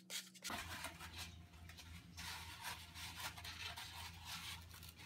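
Surform rasp shaving the foam of a boar taxidermy form in quick rhythmic strokes that stop about half a second in; after that, faint irregular scratching and handling of the foam piece over a low steady hum.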